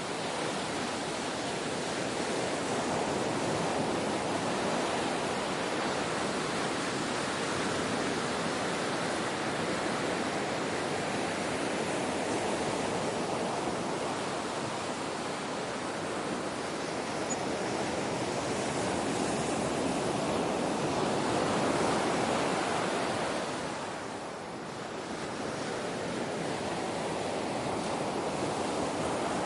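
Ocean waves breaking and washing in, a continuous rush that swells and ebbs. It builds to its loudest about 22 seconds in, then dips briefly before the next wave comes in.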